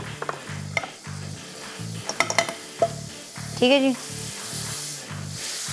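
Butter melting and sizzling in a hot non-stick frying pan, the first stage of a roux, while a spatula pushes it around with a few light taps. Background music with a steady beat plays underneath.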